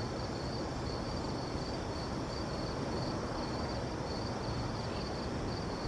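A cricket chirping, a high pulsing trill repeating about twice a second, over a steady low background rumble.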